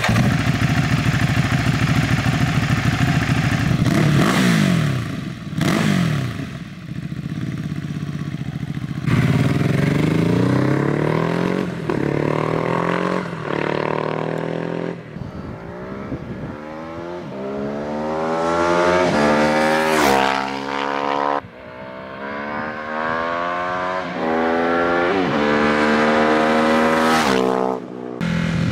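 Ducati Hypermotard's 821 cc L-twin breathing through a REMUS HyperCone slip-on exhaust, running and revving, then accelerating hard through the gears. Over the second half its pitch climbs and drops back at each upshift about five times.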